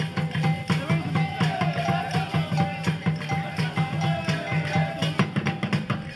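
Traditional West African music with a steady percussive beat and a wavering melodic line over it.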